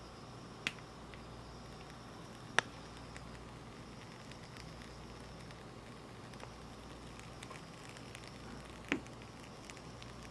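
Whipped cream piped from a piping bag through a metal star tip into a glass cup: faint soft squishing over a steady low hum. Three sharp clicks stand out, about a second in, near the three-second mark (the loudest) and near the end.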